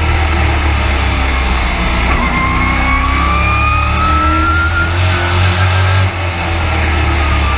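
Race truck engine heard from inside the cab, running hard with its pitch rising steadily as it accelerates. About six seconds in there is a brief lift off the throttle.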